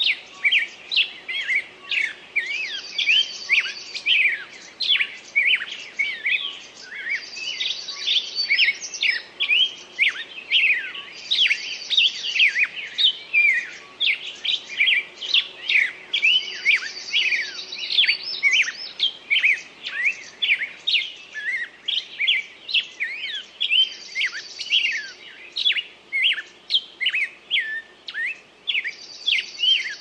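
Small songbirds chirping in a dense, continuous stream of short downward-sweeping chirps, with a higher rapid trill repeating every four or five seconds.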